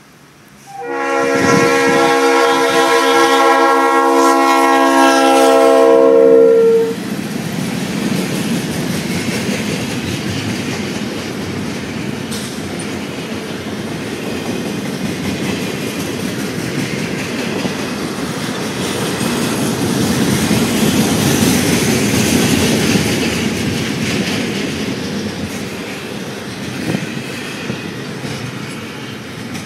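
A Norfolk Southern freight locomotive's air horn sounds one long, steady multi-note chord for about six seconds. The horn cuts off and the double-stack container train rolls past, its wheels running steadily on the rails.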